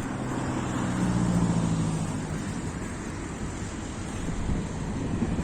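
A motor engine's low drone over a rumbling background, growing louder about a second in and easing off again after a couple of seconds, like a vehicle or vessel passing.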